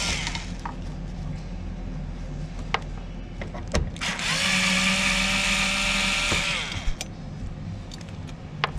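Small Black & Decker electric screwdriver running for about two and a half seconds, starting about four seconds in. Its motor spins up, holds a steady whine and winds down as it backs out the last fuel pump cover bolt. A few light clicks of the tool and bolt come before and after.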